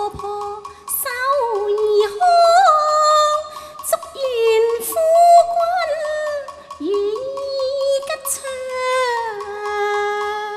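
A female Cantonese opera singer sings a line in a high voice, with gliding, ornamented pitch, over traditional instrumental accompaniment.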